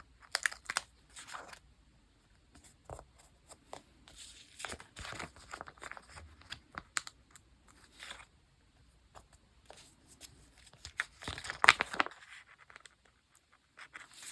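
Paper and stickers being handled for diary decorating: irregular rustling and tearing sounds, the loudest burst about eleven to twelve seconds in.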